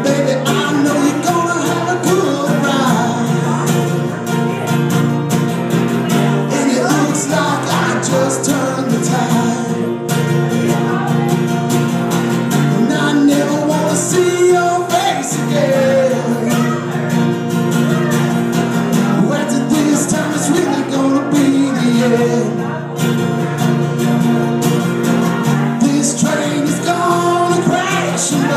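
A live band playing a song, with a singer and guitar.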